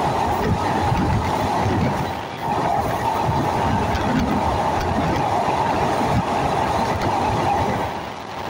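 Passenger train running at speed, heard from the carriage window: a continuous rumble and rush of wheels on the rails, easing slightly twice.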